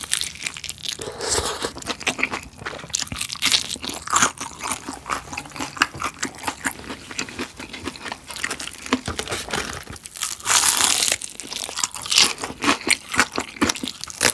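Close-miked biting and chewing of crispy fried chicken with garlic sauce poured over it: a steady run of crisp crunches and crackles from the batter. There is a longer, louder crackle around ten seconds in.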